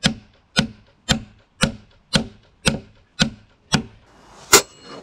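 Claw hammer driving a wooden peg into a joint of a larch timber-frame beam: eight steady blows, about two a second. Near the end a rising rush of noise leads into one louder, sharper hit with a brief ring.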